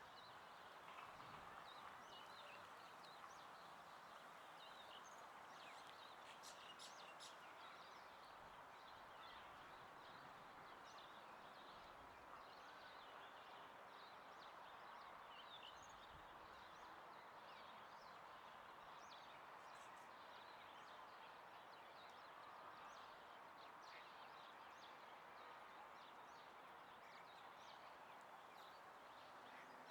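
Faint outdoor nature ambience: a soft, even hiss with many short, high bird chirps scattered throughout.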